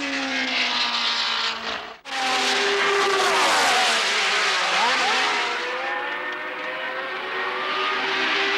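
Several 1970s Formula One cars at full throttle passing close by, their engine notes rising and falling away as each goes past. The sound breaks off for an instant about two seconds in, then more cars sweep by.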